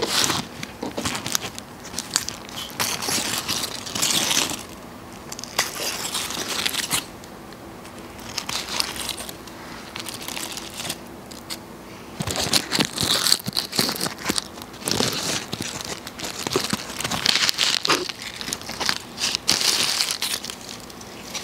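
Foil burger wrapper crinkling and rustling as it is unwrapped by hand, in irregular bursts of crackles, quieter for a few seconds in the middle.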